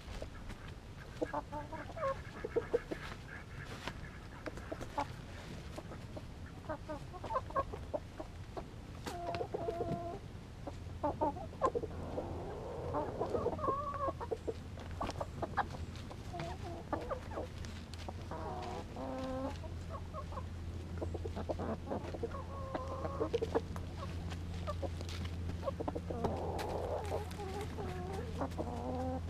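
Several chickens clucking close by in short repeated calls, with scattered sharp taps. A steady low hum comes in about a third of the way through.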